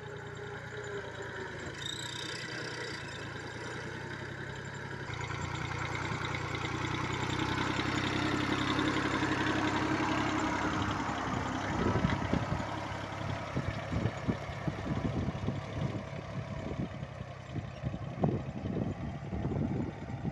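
Small tractor's diesel engine running steadily while pulling a seed drill. From about twelve seconds in, irregular low thumps sound over the engine.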